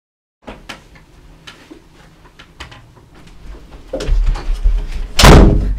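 Faint scattered clicks and rustles, then louder knocks building to a loud bang a little after five seconds in, like a room door flung open.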